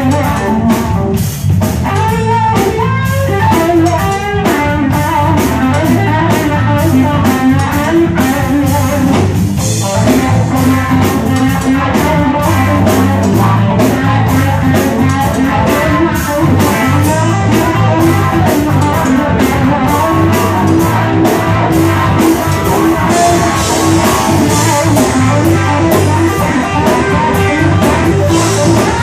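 Live rock band playing an instrumental passage: electric guitars with wavering, bending lead lines over bass guitar and a drum kit, loud and steady throughout.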